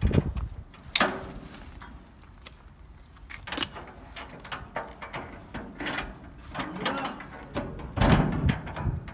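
Metal clicking and clanking as a steel shipping container's door locking handle and its seal are worked by hand and with a tool: an irregular run of sharp clicks and knocks, the loudest about a second in and around eight seconds in.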